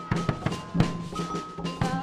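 Afro-Brazilian percussion ensemble playing a driving drum rhythm: sharp drum strikes several times a second over a steady low tone, with held pitched notes above.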